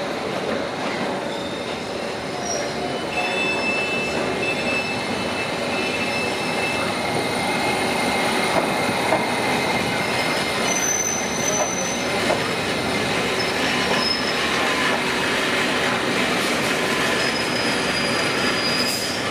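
London Underground District line S7 Stock train running past over pointwork, with a steady rumble and clatter of wheels on rail. Its wheels squeal in high whistling tones that come and go.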